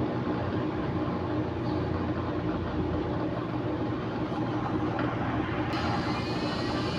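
Front-loading washing machine draining on its spin cycle: the drain pump runs with a steady hum. Near the end a faint rising whine joins in.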